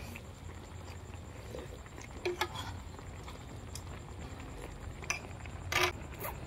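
A few light clinks of a metal spoon and chopsticks against a plate and pan, the loudest near the end, over a steady low hum.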